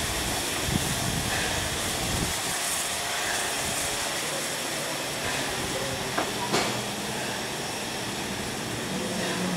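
Narrow-gauge steam locomotive and its train running away along the line with a steady hiss, the low rumble dropping away after about two seconds as it recedes. Two short sharp clicks come about six seconds in.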